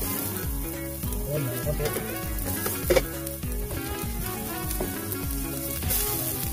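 Onion and garlic sizzling in oil in a stainless steel frying pan while a silicone spatula stirs them, with one sharp knock about three seconds in. Near the end the sizzle brightens as shredded cabbage and carrot hit the pan. Background music with a steady beat plays throughout.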